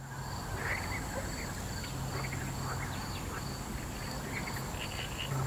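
Outdoor nature ambience of birds calling in short, scattered chirps, with a faint high pulse repeating about twice a second and a steady low hum underneath.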